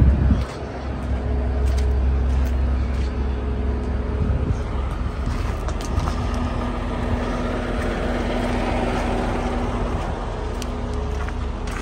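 Semi truck's diesel engine idling steadily, an even low hum.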